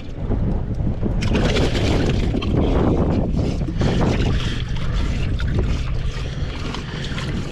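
Boat under way: a steady low outboard motor drone mixed with rushing wind on the microphone and water noise.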